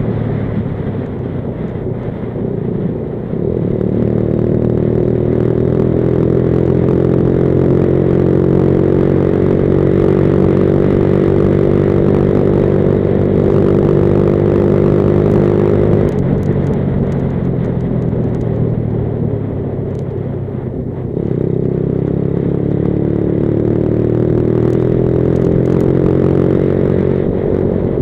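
Junak motorcycle engine heard from on board while riding. Its pitch climbs steadily as it pulls from about three seconds in, drops abruptly about sixteen seconds in, then climbs again from about twenty-one seconds in, with a steady rush of road and wind noise underneath.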